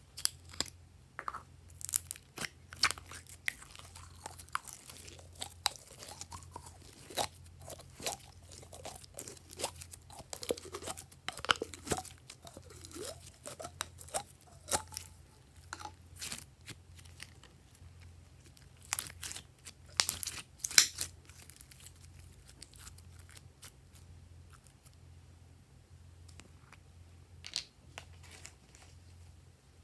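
Glossy purple slime being squeezed and pulled out of a plastic cup, with sticky crackles and short squelches, among clicks and taps of plastic containers being handled. A cluster of louder clicks and crackles comes about two-thirds of the way through.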